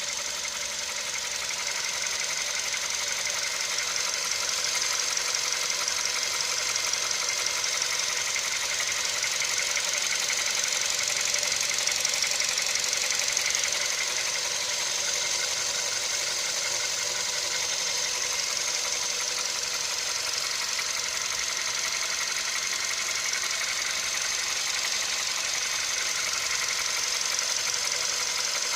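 VW 1.6-litre CFNA four-cylinder petrol engine idling at operating temperature with a steady, repetitive knock that is still there once the engine is fully warm.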